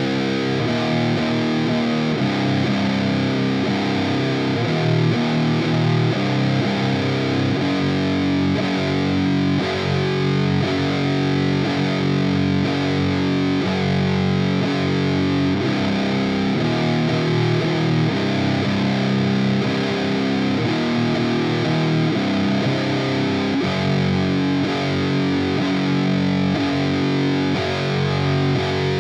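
Electric guitar played through an Eno BMF, a Big Muff-style fuzz pedal, recorded direct with a cabinet impulse response: heavily fuzzed, low-tuned metal riffing with chords held for a second or two at a time and changing steadily.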